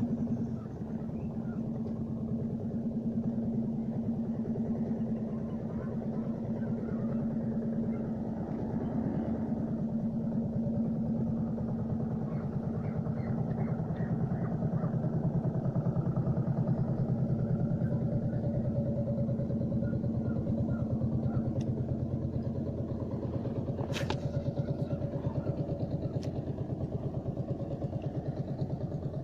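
A small engine running steadily, with one sharp click late on.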